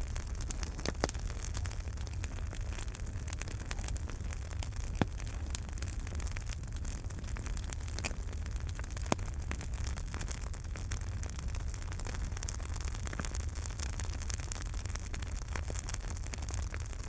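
Wood fire burning in a fireplace: a steady low rumble of the flames with irregular crackles and pops from the logs, a few sharper pops standing out.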